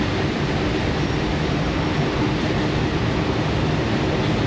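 Steady low mechanical hum with an even rushing noise: shop background with no distinct event.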